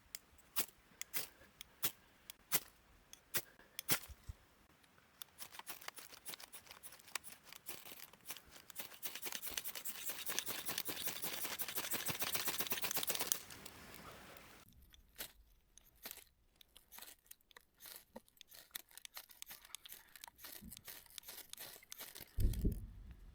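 Close handling noises from getting fire-starting gear ready: scattered clicks and knocks. About five seconds in, a dense crinkling, tearing rustle begins and grows louder, then stops about thirteen seconds in, leaving a few scattered clicks.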